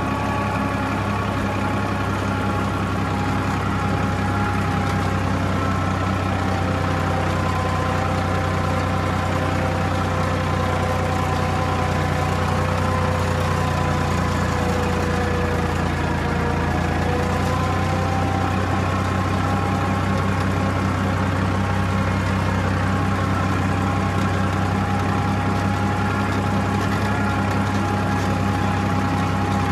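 Farmtrac 60 Super Max tractor's diesel engine running steadily under load, pulling a laser land leveller whose bucket is starting to fill with soil. Its pitch sags slightly about halfway through and then picks up again.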